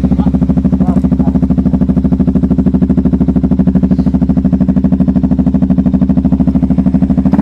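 Suzuki Gixxer 250 SF's single-cylinder engine idling steadily with a fast, even exhaust pulse.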